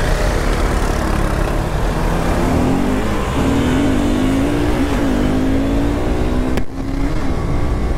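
KTM RC 390's single-cylinder engine accelerating hard. Its note climbs over the first few seconds and then holds high and wavering, under heavy wind rush. The loudness dips briefly once, about six and a half seconds in.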